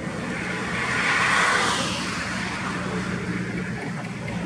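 A car passing by at highway speed: its tyre and engine noise swells to a peak about a second and a half in, then fades away.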